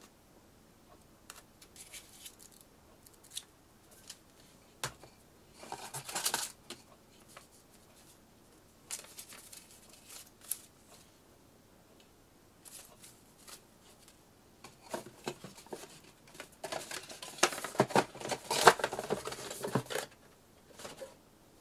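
Paper instruction leaflets rustling as they are leafed through and unfolded, in short scattered bursts with a few sharp flaps, and a longer, louder spell of rustling and scraping near the end.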